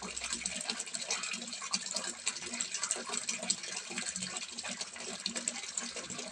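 Water pouring from a spout into a small fish pond: steady splashing and trickling made up of many small, irregular splashes.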